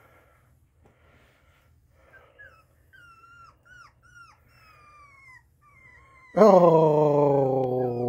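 Puppies whimpering in short, high squeals that fall in pitch, then a much louder long, low moan that sinks slowly in pitch for nearly two seconds near the end.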